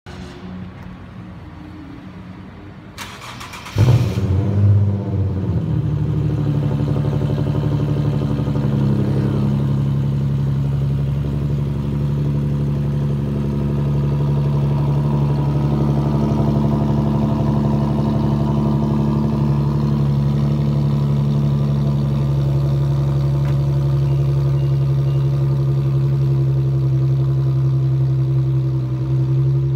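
Infiniti Q50 V6 with its mufflers deleted, cold-starting. A short burst of starter cranking about three seconds in, then the engine catches with a rev flare and settles into a loud, steady fast idle.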